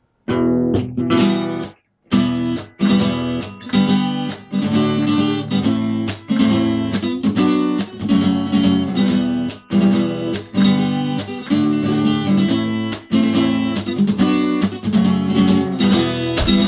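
Acoustic guitar strummed in a steady rhythm, playing a song's instrumental intro. It breaks off briefly about two seconds in, then the strumming picks up again and carries on.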